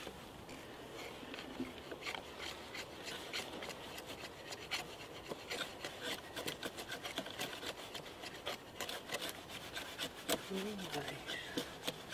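Two knife blades shaving thin curls off dry wooden sticks to make feather sticks: quick, irregular scraping strokes, several a second, overlapping from the two carvers.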